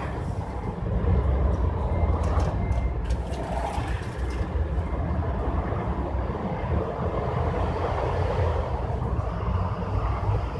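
A steady low rumble with a hazy noise on top, and faint high crackles between about two and four and a half seconds in.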